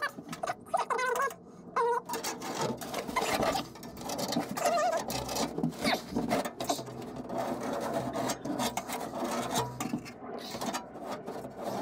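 Irregular scratching and rubbing of a marker being traced along a hatch outline on a boat deck in a tight space, with a few short squeaks in the first two seconds.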